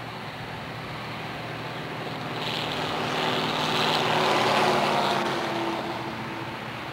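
Diesel locomotives working hard under load, their engines giving a steady deep drone. A broader rush builds about two and a half seconds in, is loudest near the middle, and eases back down toward the end.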